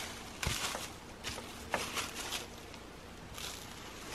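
Footsteps crunching and rustling in dry fallen leaves, a scattering of light crunches over the first two and a half seconds, then quieter.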